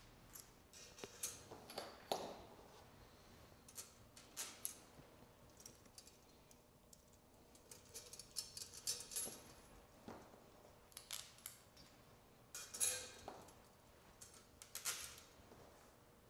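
Faint, irregular metallic clicks and clinks of stainless steel bolts, flat washers and nylock nuts being handled and threaded by hand onto the stainless steel wire motor mount of a floating surface aerator.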